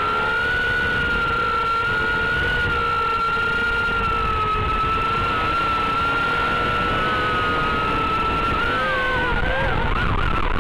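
Brushed motors of a Tiny Whoop quadcopter whining at a steady pitch; from about nine seconds in the pitch wavers up and down with throttle changes.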